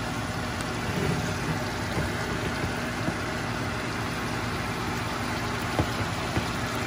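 Seasoned chuck roast searing in hot oil in a pot, the oil sizzling steadily, over a steady low hum from the range hood vent fan. A couple of light clicks come near the end.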